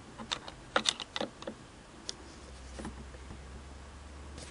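Light metallic clicks and taps of a screwdriver working at the stiff eccentric stud on a Singer 403A's bobbin-case bracket, several close together in the first second and a half, then a few spaced out. The stud won't turn, which the owner puts down to the set screw not being loosened enough.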